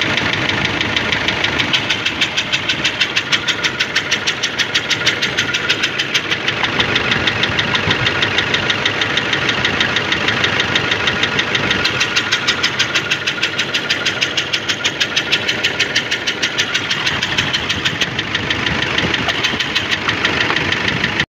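Mazda WL 2.5-litre four-cylinder diesel engine idling with a loud, regular knock several times a second. The mechanic traces the trouble to cylinder 2, where a valve has broken and holed the piston, leaving no compression.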